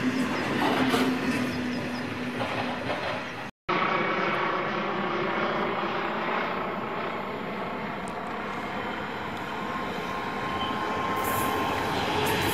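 Freight wagons rolling past with steady wheel and rail noise. After a break, a Class 66 diesel locomotive, with its two-stroke EMD V12 engine, approaches hauling freight wagons and grows louder near the end as it draws close.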